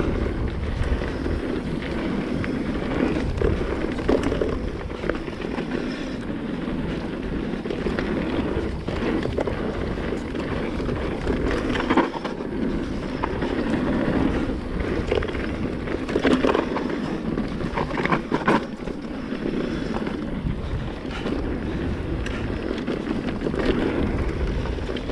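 Mountain bike descending a dirt and gravel trail: tyres rolling over loose stones and the bike rattling over bumps, with wind buffeting the microphone. A few sharper knocks stand out over rough spots, the loudest about halfway through.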